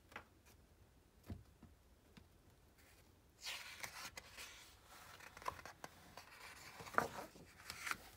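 Paper rustling with a few light clicks and taps: the pages of a picture book being handled and turned. The rustling starts about three and a half seconds in, after a few soft taps.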